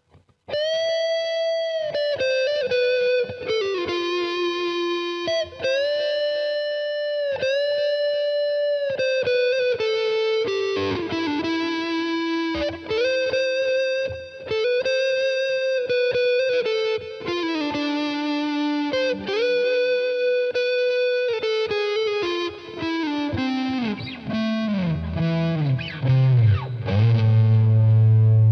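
Distorted electric guitar played through a Fender Mustang III V2 modelling amp: a single-note lead melody of sustained notes with string bends, ending on a low note that rings loud near the end.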